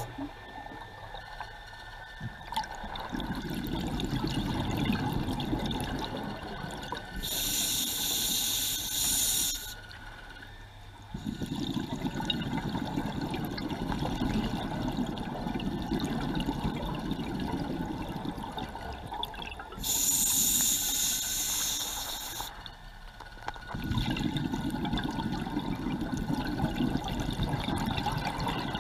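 Scuba regulator breathing underwater. A sharp hiss of inhalation through the regulator comes twice, about 7 and 20 seconds in. Between the hisses come long stretches of rumbling exhaled bubbles.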